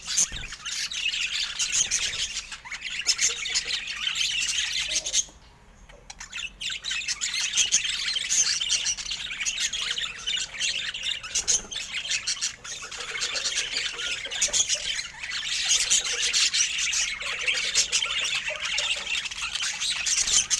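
Budgerigars chattering and squawking in a fast, continuous warble of high chirps, broken by a brief pause about five seconds in.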